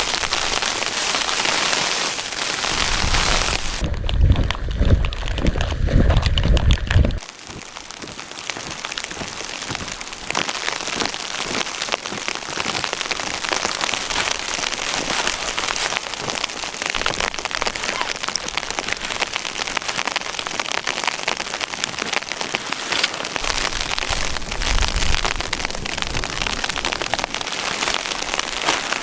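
Blizzard wind driving snow, a steady hiss with fine pattering. A deep wind rumble runs from about 4 to 7 seconds in and cuts off suddenly.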